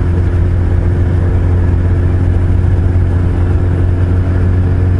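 Suzuki Hayabusa's inline-four engine running at a steady, unhurried cruise: a constant low engine drone with no revving or gear changes.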